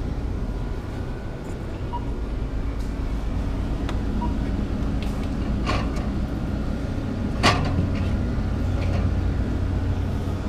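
Metal drink cans knocking as a can of Monster energy drink is pulled off a cooler shelf: two sharp knocks, the louder one about seven and a half seconds in, over a steady low background rumble.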